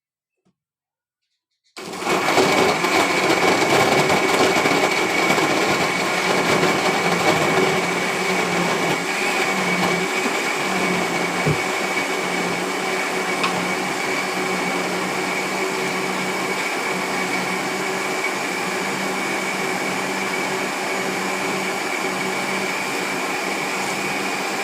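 Electric kitchen blender switching on about two seconds in and running steadily with a constant whine, grinding kencur (aromatic ginger) root in water. It is a little louder for the first several seconds, then settles.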